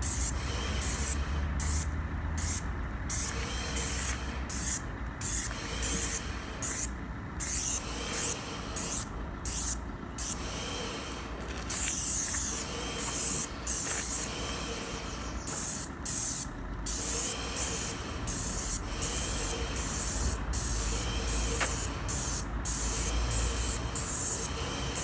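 Wagner airless paint sprayer gun spraying fence paint in short hissing bursts as the trigger is pulled and released over and over, with one longer spray near the middle. It is laying on a light mist coat.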